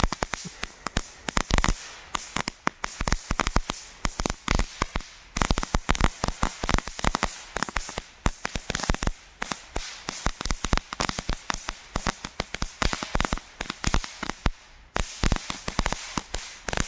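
Jorge JC08 crackling fountain burning on the ground: dense, irregular crackling pops, many a second, over a steady hiss of sparks. Very loud for such a small fountain.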